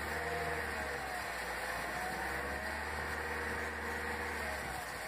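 Hyundai Verna's engine running in first gear, spinning a brake disc with the wheel off, and a steady hiss of emery paper pressed against the disc face. The disc is being scuffed rough to remove its glazed shine, which is meant to cure a vibrating, shuddering brake pedal.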